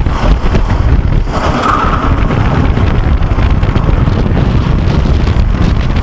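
Ghostrider wooden roller coaster train running at speed: a loud, steady rumble of the train on the track with wind rushing over the microphone.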